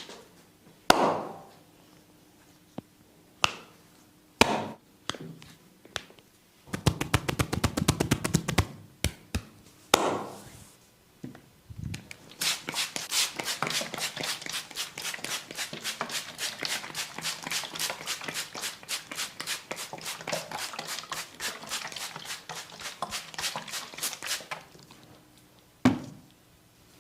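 Massage percussion: the masseur's hands striking skin, a few single loud slaps, a quick burst of tapping, then a long run of fast, even tapping at about five strikes a second that stops near the end, followed by one more slap.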